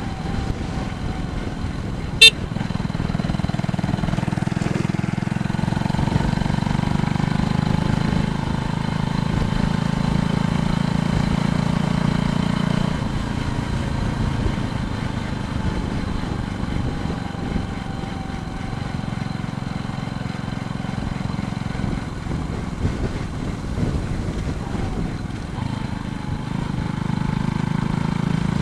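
Steady road noise from a bicycle ride: a continuous low rumble of moving air and tyres on the road, with one sharp click about two seconds in.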